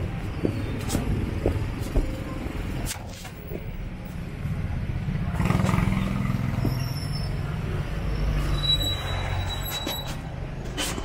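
Slow, congested street traffic: car and motorcycle engines idling and creeping past at close range. The engine noise swells about five or six seconds in as motorcycles pass close by.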